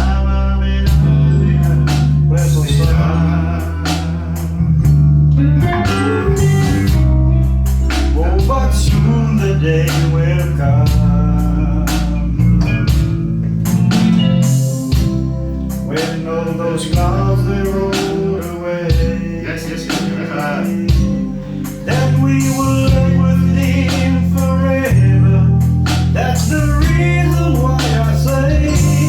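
A rock band playing a song together: electric guitar, bass guitar and drum kit.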